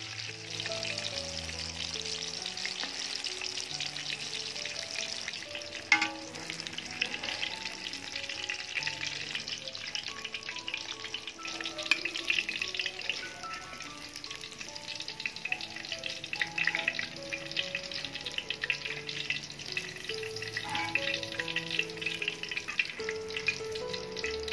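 Tofu cubes sizzling and crackling as they deep-fry in hot oil in a metal wok, stirred with a metal ladle, with two sharp metal knocks, about six seconds in and again near the middle.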